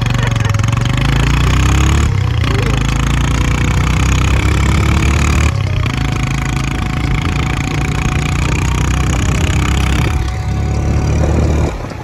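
Motorcycle engine running close by on a rough dirt road, its pitch rising and falling with the throttle. It drops away sharply near the end.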